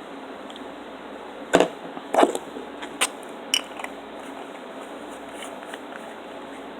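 A few sharp clicks and taps of small plastic makeup cases being handled and set down: four short knocks in the first half, over a steady low hiss.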